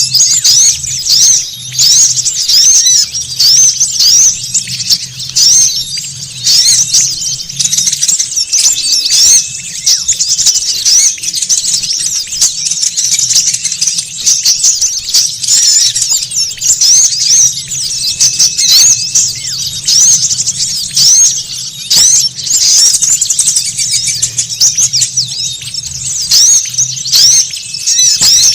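A noisy chorus of many small songbirds twittering at once: a dense, unbroken stream of rapid, high-pitched chirps, as used for a bird-lure (pikat) call. A brief thin whistle-like note recurs about every nine to ten seconds.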